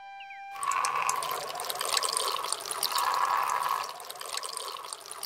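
Water pouring steadily from a watering can, starting about half a second in as a flute tune cuts off.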